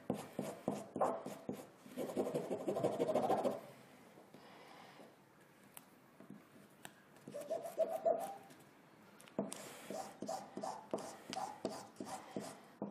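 Hand rubbing a toner-printed transfer sheet face-down onto cotton-linen canvas over a wooden table: repeated scratchy rubbing strokes, louder in the first few seconds, easing off for a few seconds in the middle, then resuming.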